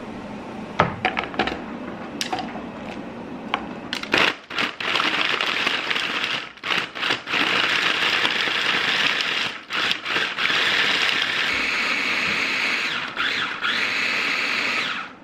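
Mini electric food processor chopping chunks of Parmesan cheese. Its motor runs in several bursts of one to three seconds, starting about four seconds in. Before that come a few sharp clicks and knocks.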